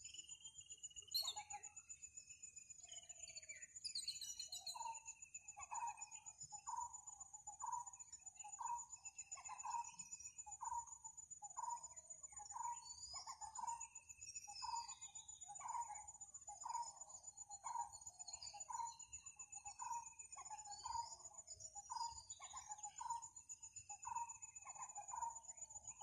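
Birdsong: one bird repeats a short, mid-pitched note a little more than once a second from a few seconds in, while other birds give scattered slurred, falling whistles over a steady high-pitched insect drone.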